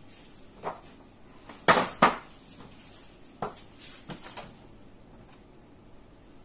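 A few sharp knocks and clanks of a metal cake pan going into a countertop oven and the oven door being handled, the two loudest close together about two seconds in.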